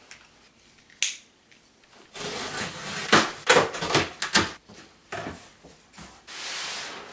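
A large cardboard box being cut open along its packing-tape seam, with a click and then a run of scraping, tearing strokes. Near the end, a steady rustle as the cardboard flaps are pulled apart.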